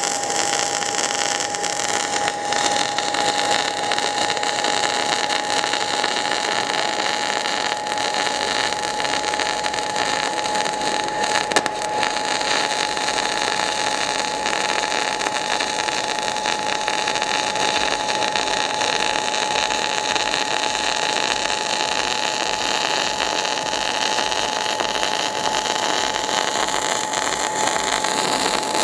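MIG/MAG welding arc from a 500-amp semiautomatic welder under argon–CO2 shielding gas, running a continuous bead at high voltage: a steady, even hiss with a constant high tone over it.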